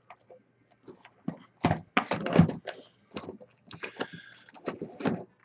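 Cardboard hobby boxes knocking and sliding against one another as they are shifted and one is pulled from a stack. There is a string of short knocks and scrapes, loudest about two seconds in, and a brief scraping slide near the end.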